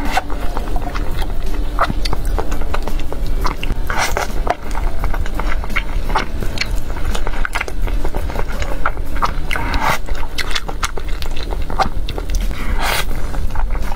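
Close-miked eating of zhajiangmian noodles in thick sauce: constant wet chewing and mouth clicks, with longer slurps about four, ten and thirteen seconds in.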